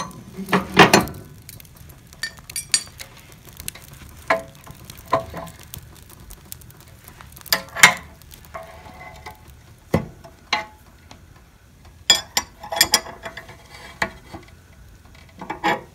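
Wood logs burning in a fireplace, crackling with sharp pops at irregular intervals, some single and some in quick clusters, over a faint steady hiss.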